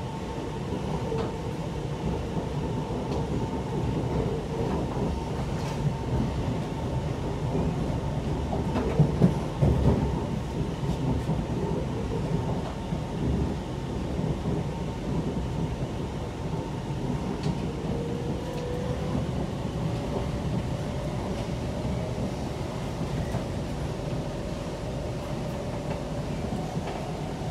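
Siemens C651 MRT train running between stations, heard from inside: a steady rumble of wheels on rail with a few louder knocks about nine seconds in. In the last third a whine rises gently in pitch.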